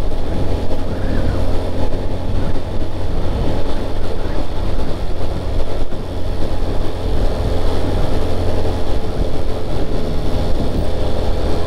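Steady low rumble of a vehicle driving along the road, engine and tyre noise on drizzle-wet asphalt.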